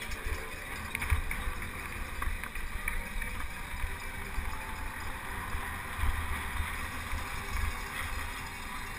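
Wind buffeting the microphone of a helmet camera on a penny-farthing ridden at race speed: an uneven low rumble under a steady rush of air.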